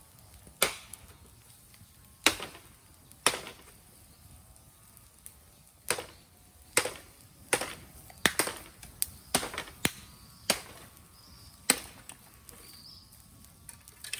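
Raw bamboo burning in an open fire, crackling with about a dozen sharp, irregular pops and cracks that come thicker in the middle of the stretch. Green bamboo burns poorly and pops as it heats.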